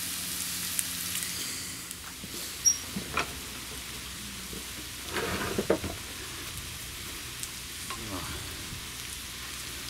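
Food sizzling steadily in an iron frying pan over a wood-fired hobo stove, with a metal spatula knocking and scraping against the pan a few times, loudest about a third and just over half way in.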